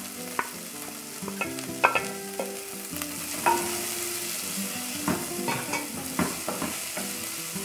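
Chopped onion, garlic and green bell pepper sizzling in oil in an aluminium pot while a wooden spoon stirs them, knocking and scraping against the pot's sides and bottom many times. The loudest knock comes just under two seconds in.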